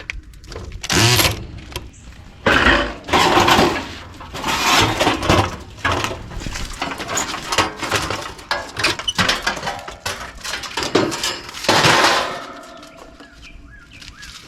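Sheet-metal panels and parts of an old central air conditioner condensing unit clattering, scraping and knocking as it is taken apart by hand, in an irregular run of loud bangs that dies down near the end.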